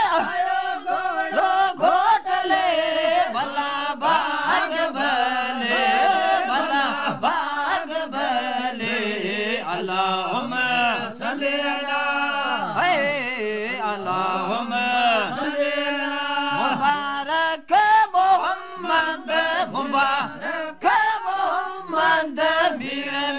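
A song with a voice singing long, winding, chant-like melodic lines.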